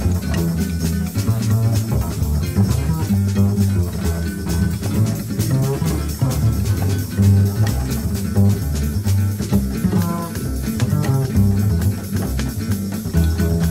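Jazz played on double basses, deep plucked notes moving in a steady beat.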